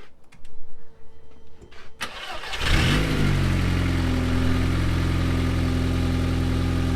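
A few light clicks, then the Audi S3 8L's 1.8-litre 20-valve turbocharged four-cylinder is cranked and fires about two seconds in, flares briefly and settles into a steady idle on its fresh oil.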